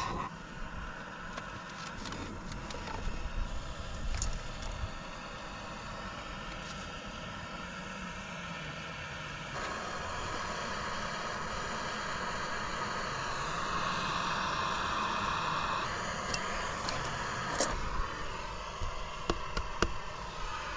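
Light clinks and scrapes of a metal scoop and a stainless steel coffee canister being handled, over a steady background hiss.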